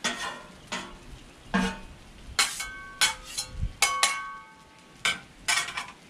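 Metal spatulas scraping and clinking on a Blackstone steel griddle top and against each other, about a dozen sharp strokes, a few of them ringing briefly in the middle, over a faint sizzle of potatoes frying in oil.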